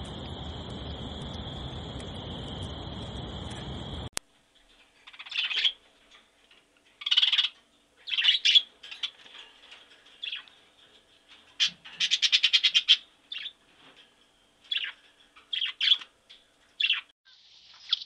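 A flock of sun conures calling in short, loud bursts, one of them a rapid run of repeated notes. Before the calls, a steady high-pitched drone over a hiss cuts off suddenly.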